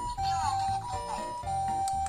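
Japanese ambulance two-tone "pee-poh" siren, a high and a low tone taking turns about every two-thirds of a second, over background music with a steady beat.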